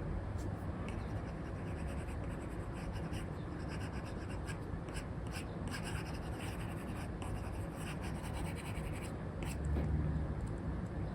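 Stylus drawing on a tablet's paper-like screen film: an Apple Pencil 2 with an Elecom nib making short, irregular scratchy strokes and taps, over steady low background noise that swells briefly near the end.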